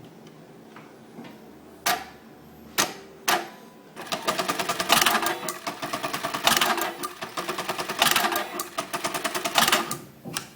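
Computer-controlled lockstitch button sewing machine (ORS-438 D, a BE-438 / LK-1903 type) at work: a few separate sharp clicks, then from about four seconds in a fast, even run of stitching strokes that swells louder roughly every second and a half, and stops near the end.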